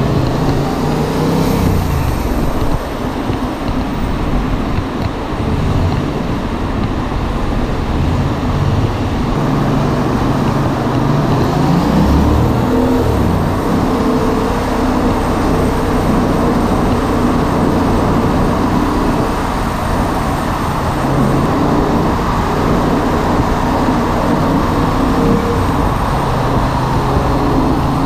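Yamaha MT-07's 689 cc parallel-twin engine running at road speed in a road tunnel, its pitch rising and falling every few seconds with the throttle. Steady wind and tyre rush and surrounding traffic run underneath.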